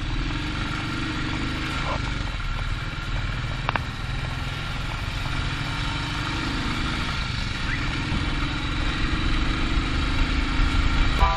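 Motorcycle engine running while riding, its low pulsing exhaust note under wind noise on the microphone. It grows a little louder in the last few seconds as the bike picks up speed.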